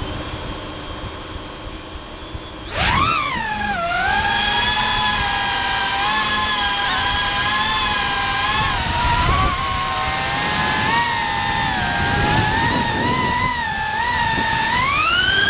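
DJI Avata FPV drone's motors and propellers spinning up about three seconds in to a loud high whine. The whine rises and dips in pitch with the throttle and climbs near the end.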